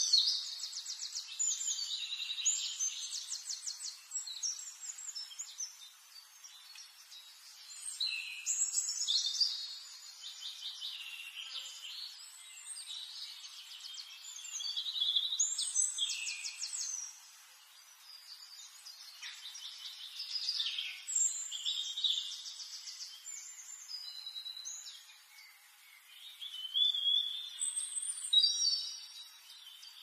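Small aviary finches singing: a high, rapid trilling song phrase about every five or six seconds, with short chirps between.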